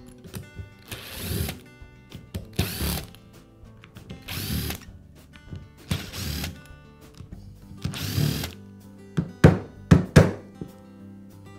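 Cordless power screwdriver whirring in about five short bursts as it backs screws out of a Dremel rotary tool's plastic motor housing, followed by a few sharp knocks near the end.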